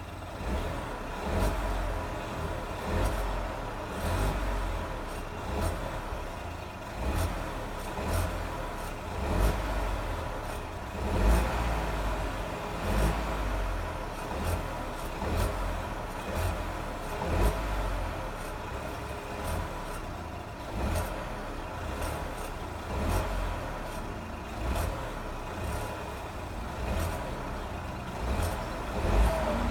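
Ford Fiesta 1.0 EcoBoost three-cylinder turbo petrol engine, its throttle feathered again and again between about 1000 and 2000 rpm, the revs swelling every second or two. A grinding noise comes with the revs and persists even though the turbo has recently been replaced.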